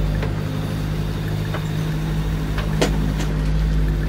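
Boat's inboard engine running steadily, heard from inside the wheelhouse, with a few sharp knocks a little after halfway through.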